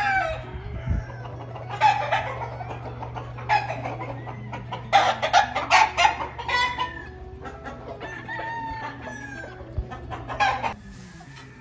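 Grey Butcher gamecocks in their pens crowing again and again, several birds overlapping, with clucking between the crows.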